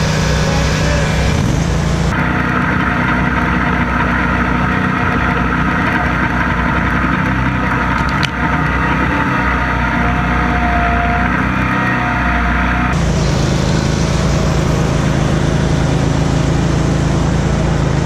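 Zero-turn riding mower engines running steadily while mowing. The tone changes abruptly about two seconds in and again about thirteen seconds in, with a single click about eight seconds in.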